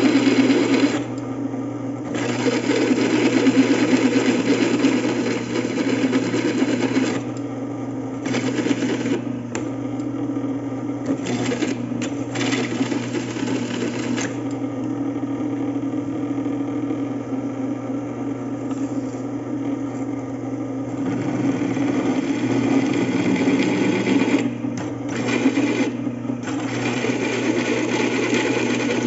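Bench drill press running steadily, drilling out the rivet heads that hold a ball joint on a car's lower control arm. The loudness rises and falls in stretches as the bit cuts.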